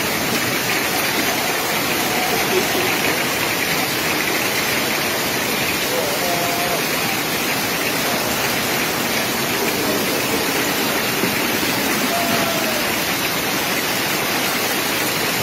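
Muddy floodwater rushing through a street in a steady, unbroken torrent, the sound of heavy rain runoff overflowing the road.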